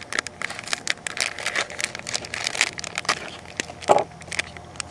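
Packaging crinkling and crackling in quick, irregular bursts as it is handled, with one louder, duller crackle about four seconds in.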